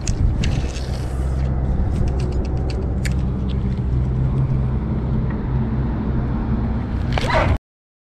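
A steady low rumble with a hum, and light clicking from a spinning reel being cranked between about one and three seconds in; the sound cuts off abruptly near the end.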